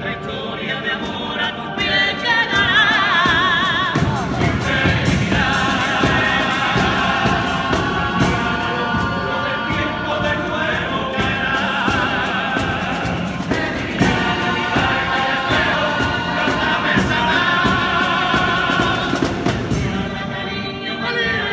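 A men's Cádiz carnival group singing a popurrí together in loud multi-part harmony, with wavering vibrato on the held notes, accompanied by guitars and a steady beat.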